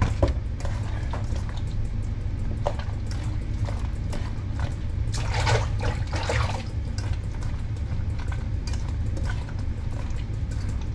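Wet squelching and sloshing as a hand kneads and washes raw queenfish pieces in vinegar in a stainless steel pot, heaviest about halfway through. A steady low hum runs underneath.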